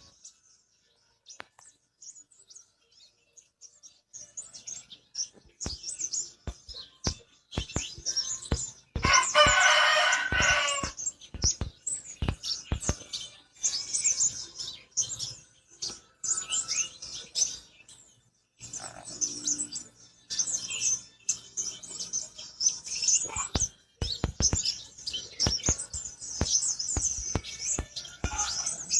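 Pentis kumbang, a small songbird, twittering in rapid high-pitched chirps mixed with sharp clicks. A rooster crows for about two seconds around nine seconds in.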